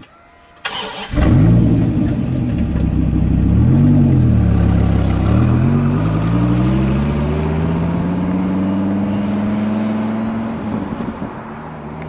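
Dodge Viper's V10 engine starting up about a second in, revving up and down once, then accelerating away with its pitch climbing steadily before easing off near the end.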